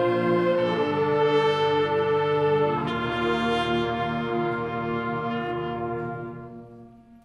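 Concert band playing slow, sustained chords that shift twice and then fade out near the end.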